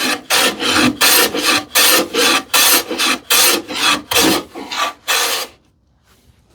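Quick, even back-and-forth abrading strokes, about two to three a second, on the sawn edge of a plywood drawer bottom, trueing it to the knife line; they stop about five and a half seconds in.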